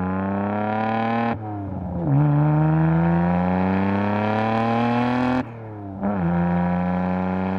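Nissan Skyline GT-R R32's twin-turbo RB26 inline-six with a 3-inch straight-pipe exhaust, heard from inside the cabin, pulling through the gears. The revs climb, drop at a gear change about a second and a half in, and climb again. They fall away sharply at another change a little over five seconds in, then settle into steady running.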